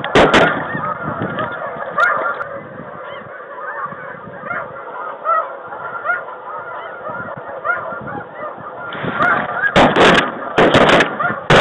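Shotgun blasts at the very start, then a large flock of snow geese calling, with many short overlapping honks. About ten seconds in, a rapid volley of shotgun fire from several guns opens up over the calling.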